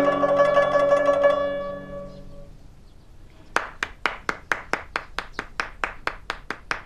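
Last plucked notes of a guzheng (Chinese zither) ringing and fading away. After a short pause a single person claps hands steadily, about five claps a second.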